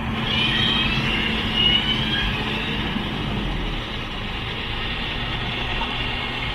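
Off-road vehicle's engine running steadily as it drives, a continuous rumble with a steady hum.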